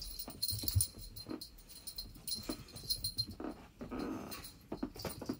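Two cats playing with a wand toy on carpet: irregular thumps and scuffles of paws, a heavier thump about a second in, and a short low cat growl around four seconds in.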